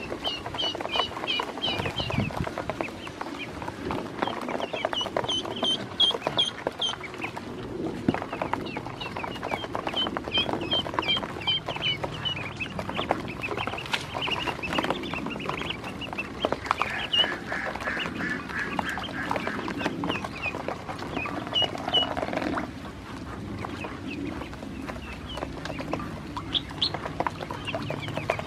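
A group of ducklings peeping in runs of short high calls, several a second, with many small clicks and taps of their bills pecking feed off the plastic basin.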